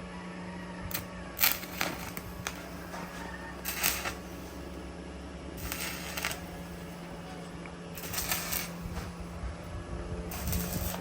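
Stick (arc) welder striking short welds: the arc crackles and sizzles in five brief bursts, roughly one every two seconds, over a steady low hum.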